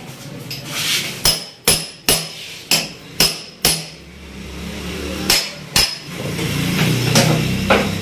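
Hammer blows on metal parts of a scrapped window air conditioner being broken up. There are about eight sharp strikes with a brief metallic ring: six in quick succession, then two more after a short pause.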